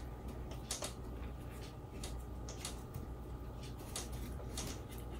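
Small parts of a wooden build kit being handled on a table: irregular light clicks and scrapes as a wing nut is fitted onto a screw, about two a second, over a steady low hum.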